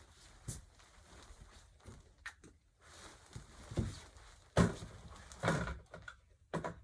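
Handling noises with scattered knocks, and two louder short bursts of noise in the second half.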